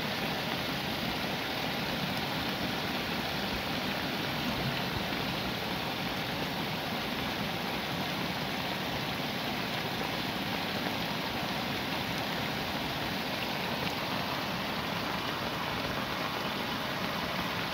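Muddy rainwater runoff rushing and splashing over a small grassy bank and along a channel, mixed with heavy rain falling; a steady, even rush of water.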